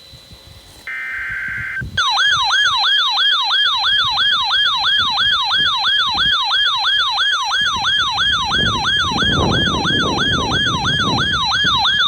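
Emergency Alert System broadcast: the last burst of the digital data header buzzes about a second in. Then a loud siren-like attention tone starts, falling in pitch and snapping back up about three times a second, ahead of a severe thunderstorm warning.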